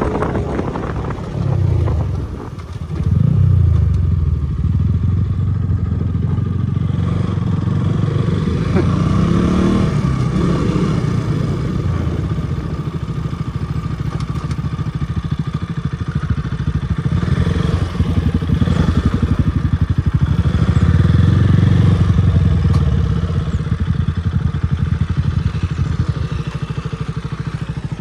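Motorcycle engine running under way, with the engine note rising about a third of the way in and a louder stretch of throttle near the end.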